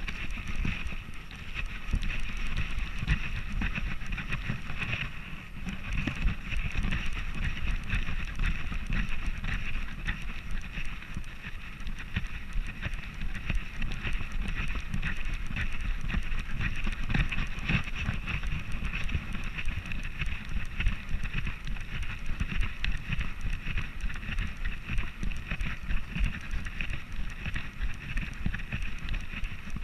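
Continuous rumbling and knocking of a camera strapped to a border collie's harness, jostled and rubbed as the dog moves, with wind on the microphone.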